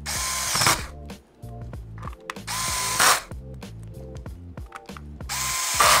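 Electric screwdriver running in three short bursts of under a second each, about two and a half seconds apart, driving the bottom cover screws into a Chromebook's case. Each burst carries a steady whine and gets louder at its end.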